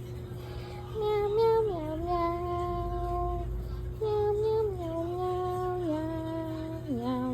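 A voice singing a slow melody of long held notes that step and slide from one pitch to the next, over a steady held tone.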